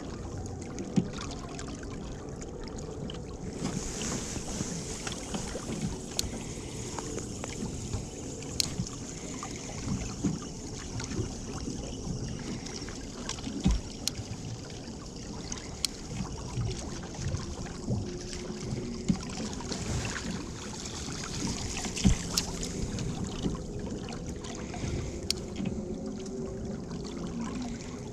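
Small fishing boat afloat: a steady hiss of wind and water with scattered light knocks and clicks.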